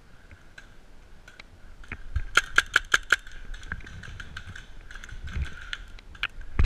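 Paintball markers firing: a quick string of about seven shots around two and a half seconds in, with scattered single shots before and after.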